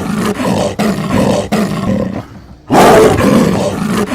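Leopard roaring: two loud, raspy bouts, the second beginning just under three seconds in.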